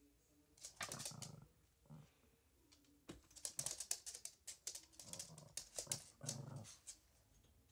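A small dog growling in about three short low bursts, among quick clicking and scuffling as it moves about on a wooden floor.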